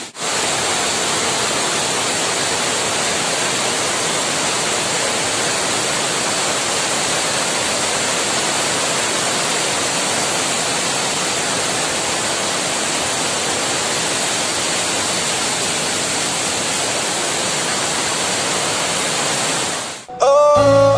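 Khoiyachora waterfall rushing as a steady wash of falling water, swollen after days of rain. It cuts off about a second before the end, and music comes in.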